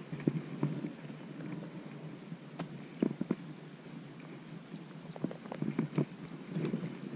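Close rustling and handling noise from an angler working a spinning rod and reel, with scattered irregular clicks and knocks and a faint steady high tone running underneath.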